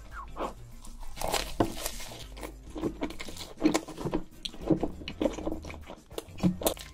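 Close-miked ASMR eating sounds: a person biting into a slice of corn-topped pizza and chewing a large mouthful, with many short irregular crackles and mouth smacks.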